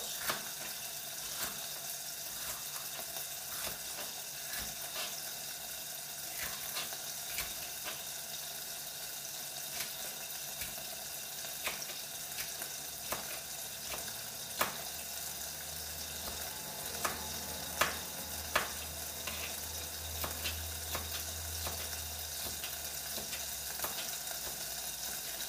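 Steady sizzle of hot oil frying in a pan, with irregular sharp taps of a knife on a plastic cutting board as green pepper is cut into strips. A low hum joins for several seconds past the middle.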